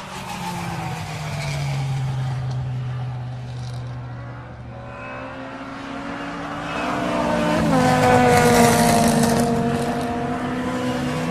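Lamborghini sports car engine running under load, its pitch sliding down, then climbing, then dropping sharply about two-thirds through, with the loudest stretch just after the drop.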